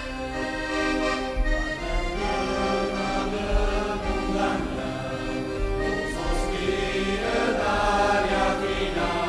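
Folk group singing a song together in chorus, holding long notes.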